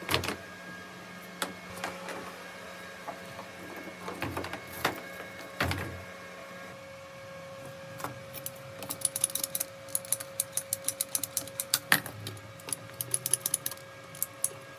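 Hand-tool work on PPR plastic water pipe: a few separate knocks, then from about halfway through a run of rapid, sharp clicks, several a second. A faint steady hum lies underneath.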